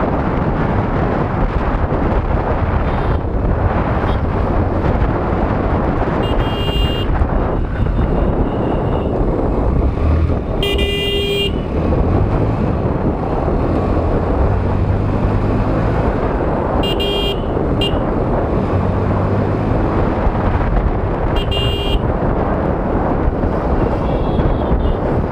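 Wind rushing over the microphone and road noise from a moving motorcycle, with a vehicle horn tooting four times: briefly about six seconds in, a longer toot near the middle, then two more short ones later.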